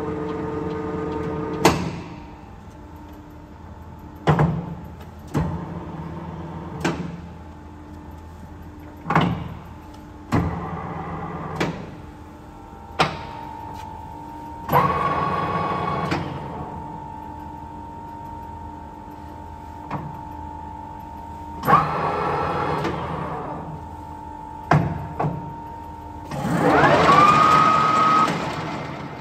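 Nuttall Generation 350 centre lathe with its motor running steadily while the headstock gear levers are shifted, giving a series of sharp metal clunks. Three times the spindle and gear train are run up for a second or two, louder, the last rising in pitch then holding steady.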